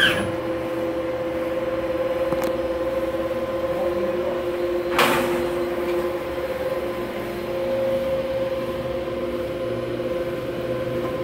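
Steady electrical and mechanical hum of a robotic welding cell at rest after the weld, two steady tones over a low rumble, with a short rush of noise about five seconds in.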